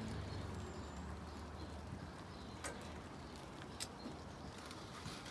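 Propane smoker's gas burner giving a low rumble that drops away at the start, then two sharp clicks about a second apart a little past the middle as the gas is turned off.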